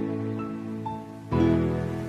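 Background music, soft new-age style: sustained chords that change about once every two seconds, with a light melody on top.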